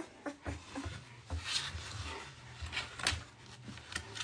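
Soft rustling and scratching with scattered light clicks as a two-week-old Great Swiss Mountain Dog puppy is handled on a weighing scale and squirms.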